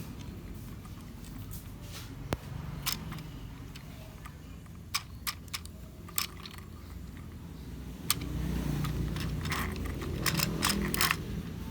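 Plastic transforming toy robot being handled, giving scattered sharp clicks and taps that come more often in the last few seconds, over a low steady hum.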